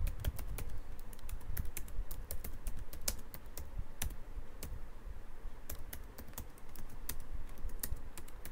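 Typing on a computer keyboard: quick, irregular keystrokes with a brief pause about six seconds in.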